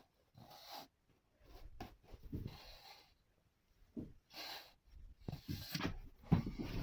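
Wooden parts rubbing and scraping together in short strokes, with a few light knocks, as a thin veneered wall panel is slid into its groove to test the fit.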